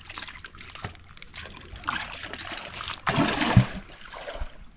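Water splashing and trickling, loudest a little after three seconds in.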